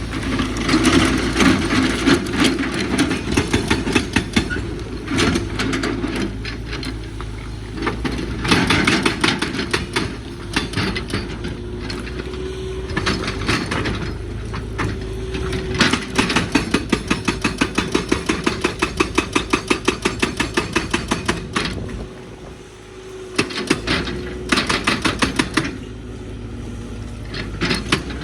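Excavator working hard rock: the engine runs steadily under bursts of rapid, rhythmic knocking against stone, about four to five strikes a second, easing off briefly a little before the end.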